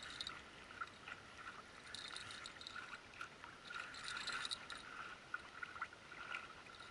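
Water lapping and gurgling against a kayak hull, with short bursts of light ticking every couple of seconds.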